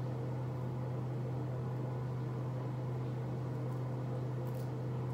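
Bathroom ceiling exhaust fan running with a steady low hum.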